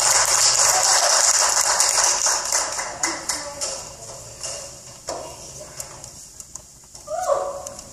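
Audience applauding, loud at first and dying away over about four seconds, then a few scattered claps and a brief shout from a voice near the end.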